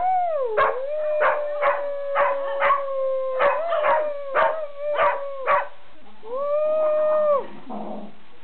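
A dog howling: one long held howl, crossed by short sharp sounds about twice a second, then a second howl of about a second, before the sound turns to scuffling near the end.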